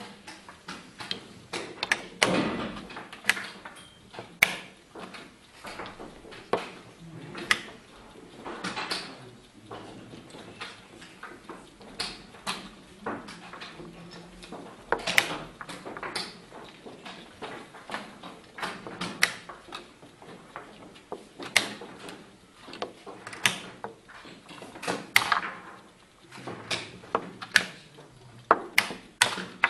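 Wooden chess pieces set down on the board and the buttons of a mechanical chess clock pressed during a blitz game: a string of sharp clicks and knocks, about one every second or two, coming faster near the end.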